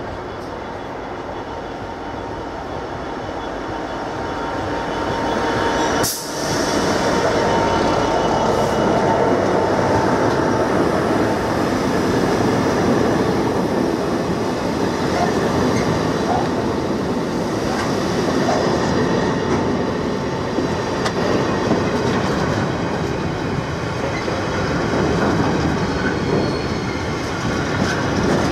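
Freightliner Class 66 diesel locomotive, with its EMD two-stroke V12 engine, approaching and growing louder over the first six seconds or so before passing close by. A long train of container flat wagons then rushes past with a steady rumble of wheels on rail and some faint high wheel squeal.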